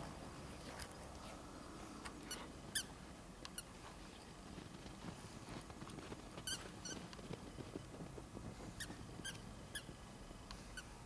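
A dog's squeaky toy squeaking in short bursts as a borzoi bites down on it, about ten high squeaks in small clusters of two or three.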